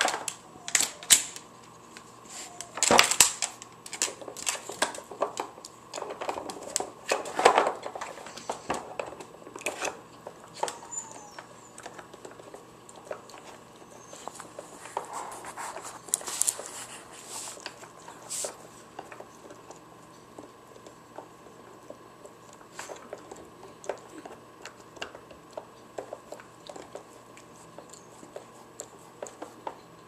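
Hard plastic dog puzzle toy clicking and knocking as a dog noses and paws at its lid, drawers and pegs: irregular clatter, busiest and loudest in the first ten seconds or so, sparser after.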